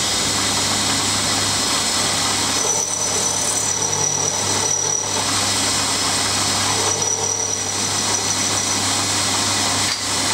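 Milling machine spindle running steadily with an end mill side-cutting the edge of a 3/8 in mild steel bar, squaring it off. A thin high-pitched whine comes in twice, for a couple of seconds each time.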